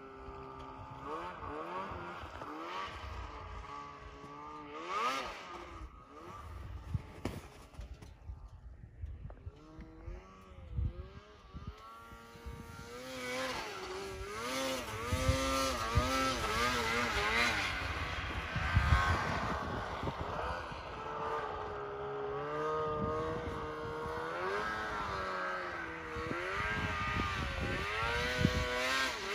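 Snowmobile engine revving up and down as the sled rides through snow, its pitch rising and falling with the throttle. It dips quieter partway through, then grows louder as the sled comes closer.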